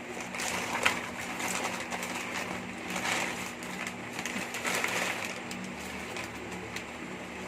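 Plastic packaging rustling and crinkling in irregular bursts with scattered clicks as it is handled and opened, over a steady low hum.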